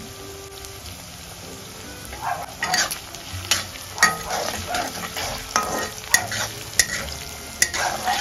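Chicken and vegetables sizzling in hot oil in an iron kadhai. From about two seconds in, a metal spatula stir-fries them, scraping across the pan and knocking against it every second or so.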